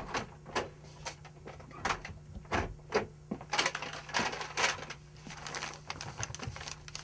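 A few footsteps and small knocks, then sheets of paper rustling and shuffling as they are handled on a music stand.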